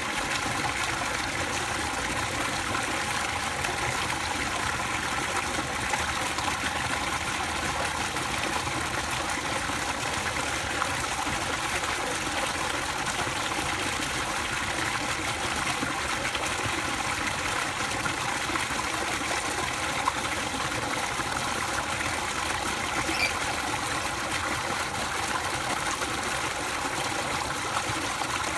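Water pouring from a pipe into a pool, a steady splashing gush that does not change.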